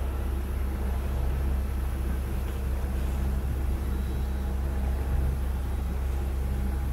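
The sailing yacht's inboard diesel engine running steadily under way, a constant low drone, with the rush of the bow wave along the hull.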